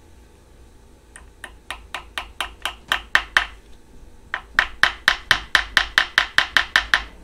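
Light hammer taps seating the key into the keyway of an engine's crankshaft snout. First comes a run of about ten taps that grow louder, then after a short pause a faster, even run of about sixteen taps at roughly six a second.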